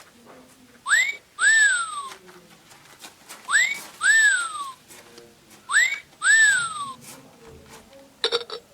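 A person whistling the same two-part whistle three times: a quick upward slide, then a longer slide back down.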